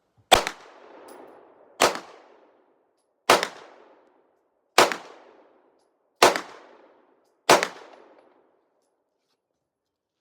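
Glock 45 9mm pistol fired six times at a slow, even pace, about one shot every second and a half, each shot followed by a short fading echo.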